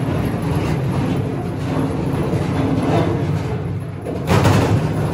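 Casters of a wheeled body stand rolling across a concrete floor under a bare VW Beetle body shell: a steady rumble that swells louder about four seconds in.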